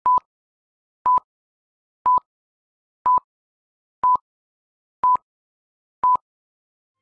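Film-leader countdown beeps: a short, steady, single-pitched beep once a second, seven times, each beginning and ending with a slight click.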